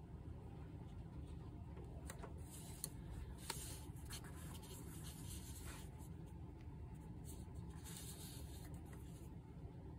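Steady low furnace rumble, with scattered light scratching and rubbing sounds from about two seconds in until near the end.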